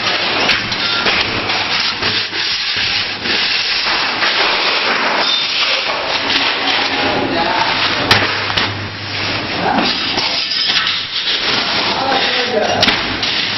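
Spot welder working on sheet-steel cupboard panels: a low electrical hum comes and goes under continuous rough hissing noise.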